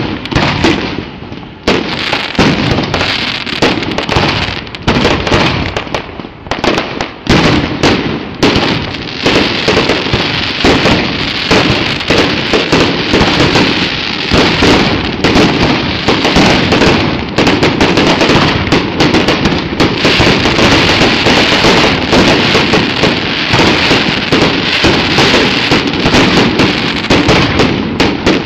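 Fireworks going off in rapid succession, dense overlapping bangs with a few brief lulls early on, then an unbroken barrage.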